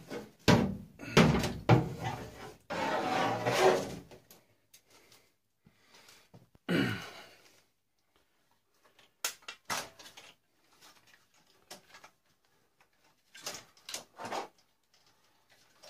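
Irregular knocks, scrapes and clatter of a tube television's hard plastic and metal parts being handled and pulled apart for scrap. Loudest in the first few seconds, then lighter scattered clicks and rattles.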